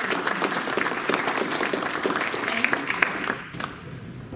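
Small audience applauding, the clapping dying away about three and a half seconds in.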